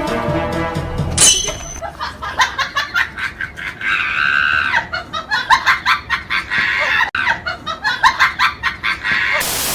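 A rapid series of short, high-pitched animal calls, several a second, beginning about a second in after a brief bit of music.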